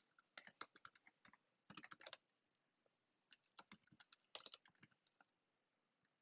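Faint computer keyboard typing: quick runs of key clicks separated by brief pauses.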